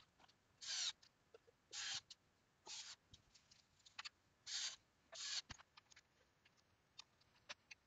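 A hand picking through small screws and parts in a plastic parts tray: five short scraping rustles in the first five seconds or so, then only faint light clicks.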